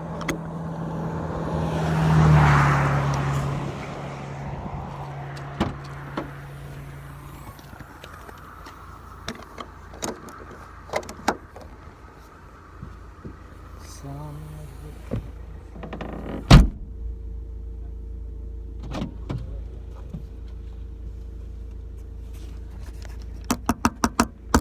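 A motor vehicle passes close by, its engine and tyre noise swelling and fading about two seconds in, heard from inside a parked car. After it come small clicks and knocks of handling inside the car, one loud knock about two-thirds through, and a quick run of clicks near the end.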